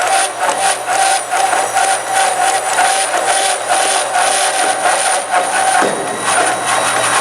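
Forrest Manufacturing 2054R vertical-blade traveling-table bandsaw running and cutting through a roll of thin plastic thermoforming sheet wound on a cardboard core: a steady whine with many rapid, irregular clicks, and a brief falling tone about six seconds in.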